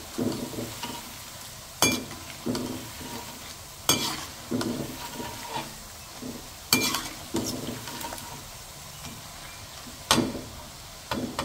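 Batter-coated potato fries sizzling as they deep-fry in hot oil in a wok, while a perforated steel skimmer stirs and turns them. Several sharp knocks of the skimmer against the pan cut through the steady sizzle.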